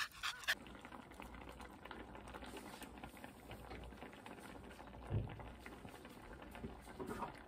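Miso broth with udon noodles and spinach simmering in a pan, a faint steady bubbling and crackling. A soft low thump about five seconds in.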